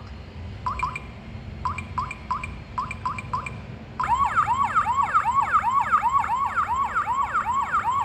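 Electronic smart door lock's keypad beeping at each digit press, then about four seconds in the lock's misuse alarm goes off: a loud warbling siren tone that sweeps about three times a second without stopping.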